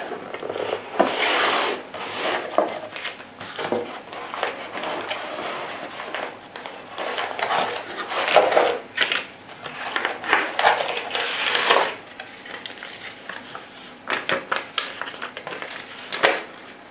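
Unboxing handling noise: a cardboard box opened and plastic-bagged parts and foam packing rustling as they are lifted out and set on a table, with scattered small clinks and taps.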